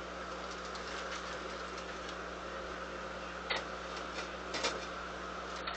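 Kitchen handling sounds at the stove: a steady hum with scattered light clicks and taps, the sharpest about three and a half and four and a half seconds in.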